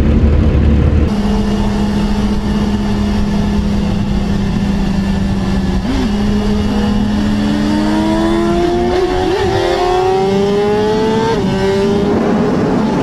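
Sportbike engine at full throttle at very high speed, pulling hard through the upper gears: a steady high-revving drone, then from about seven seconds in a rising pitch broken by quick upshifts. For the first second, before a cut, a deeper, louder motorcycle engine is heard.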